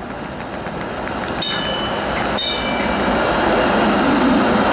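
TTC CLRV streetcar rolling along street track, its rumble growing louder as it comes close and passes. Two brief high-pitched squeals of steel wheels on the rails cut in about a second and a half and two and a half seconds in.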